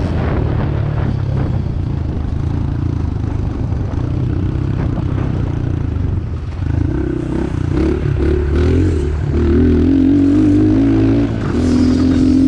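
Stock Honda CRF110F's small single-cylinder four-stroke engine running under throttle on a dirt track. About halfway through its pitch climbs and holds high, with a short drop just after eleven seconds before it revs high again on a hill climb.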